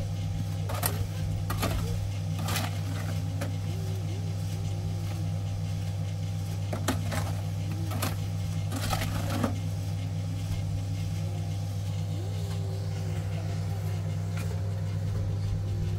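A steady low mechanical hum, like a running motor or engine, with a handful of sharp knocks and clatters on top, clustered in the first few seconds and again about halfway through.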